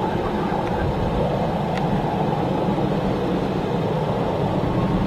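Steady low rumble of jet aircraft engines, even in level throughout.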